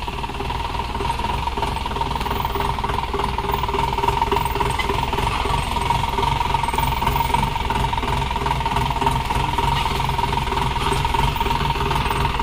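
Mahindra Major jeep's engine running at low revs as the jeep crawls over rocks, growing a little louder as it comes close. A steady thin whine sounds above the engine rumble.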